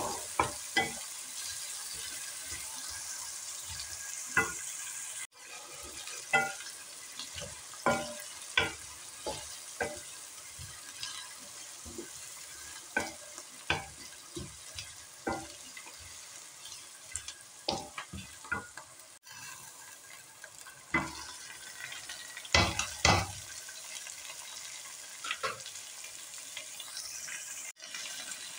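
Chopped onions frying in oil in a metal wok with a steady sizzle, while a wooden spatula stirs them, scraping and knocking against the pan many times, loudest in a quick cluster of knocks about three-quarters of the way through.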